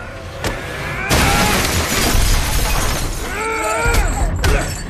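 Fight-scene sound effects: a sharp hit, then a long shattering crash lasting about two seconds. A man's pained shout follows, and another blow lands near the end.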